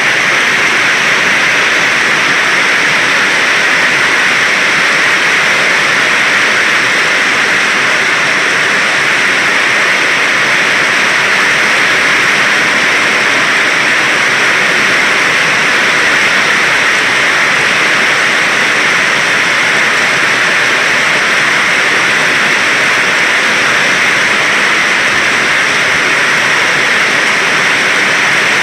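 Heavy storm rain pouring steadily: a loud, even hiss with no let-up.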